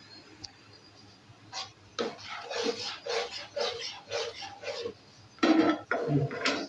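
A utensil stirring thick custard in a frying pan, scraping the pan in about two strokes a second from about two seconds in, with a few louder knocks against the pan near the end.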